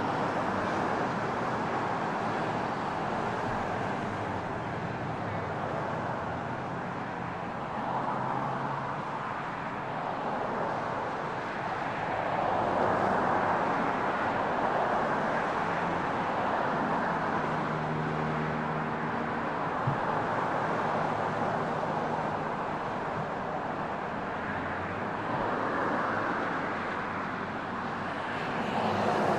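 Distant jet engines of a small twin-engine jet landing and rolling out, a steady broad rush that swells and eases. A low engine hum joins for a few seconds midway.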